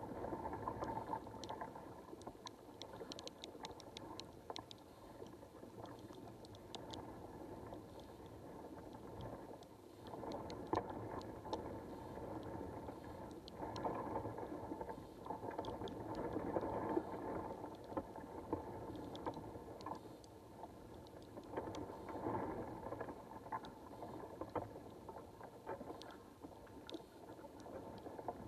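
Muffled underwater noise of canal water: a steady rushing that swells and ebbs, with scattered faint, sharp clicks.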